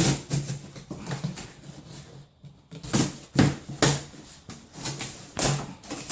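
Cardboard box being cut and torn open with a knife: an irregular run of short scraping, ripping strokes.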